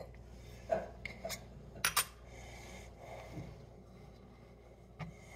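A few light metallic clicks and clinks, the loudest about two seconds in, from a stainless steel cocktail shaker being handled.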